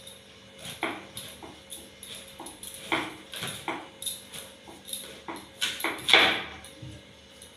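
A blade cutting and scraping through a maan kachu (giant taro) root: a run of short, irregular scrapes and cuts, the loudest and longest a little past six seconds in.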